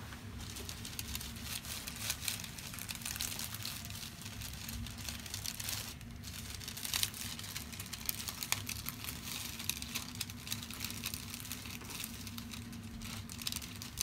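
Hands massaging the muscles of the neck of a person lying on a treatment table, rubbing against hair and the paper headrest cover in irregular soft crinkles and scratches, over a low steady hum.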